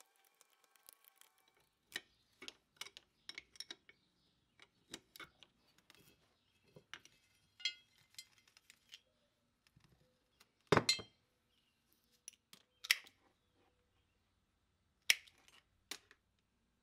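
Metal clinks and knocks as parts of an old bench grinder are handled and set down on a workbench during disassembly: irregular sharp taps, with three louder knocks in the second half.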